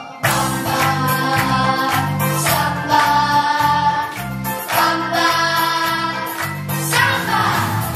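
Children's jazz vocal group, girls singing together in Hebrew over a musical accompaniment with a pulsing bass. The singers hold long notes, after a brief pause right at the start.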